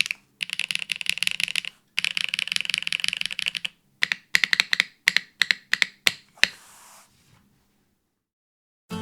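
Typing on a custom mechanical keyboard with HMX Grape Soda switches, GMK keycaps, an aluminium plate, top mount and no foam: two runs of fast, steady typing, then a string of slower, separate keystrokes. Acoustic guitar music comes in at the very end.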